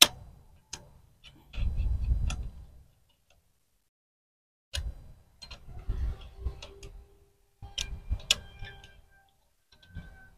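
Scattered sharp metal clicks and light clatter of pliers working on a copper pipe fitting at a split air conditioner outdoor unit's service valve, with a few dull low handling rumbles between them.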